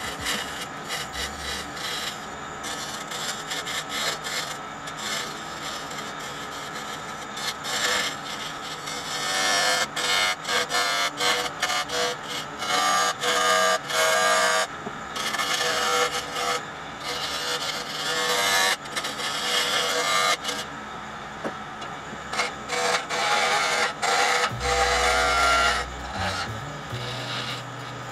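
Carbide-tipped turning tools cutting a wooden spindle spinning on a wood lathe. The scraping and shaving comes in uneven strokes as the tool is pushed in and eased off, heavier through the middle of the stretch.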